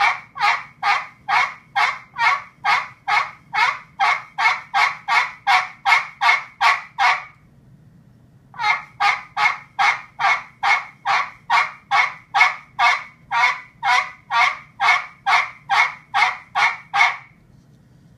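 Handmade turkey pot call with a spalted pecan pot and a 3.5 inch playing surface, worked with a pecan striker topped with cocobolo. It gives a turkey-like series of short strokes at about three a second, in two long runs with a pause of about a second near the middle.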